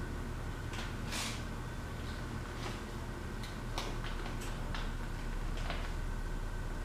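Steady low hum of a small room, with a scattered handful of short clicks and brief soft rustles.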